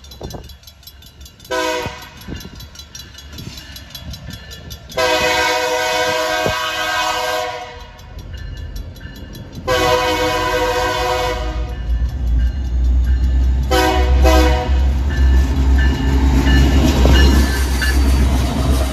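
A BNSF diesel locomotive's multi-chime air horn sounds the grade-crossing warning: a short toot, two long blasts and a short blast. After that the low rumble of the locomotive's diesel engine builds and grows loud as it rolls past close by, with the crossing bell ringing.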